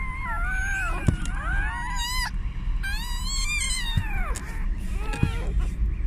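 Several newborn puppies squeaking and crying at once in high, wavering, overlapping cries, with a quick warbling squeal a few seconds in. The puppies are weak and chilled after being half-drowned.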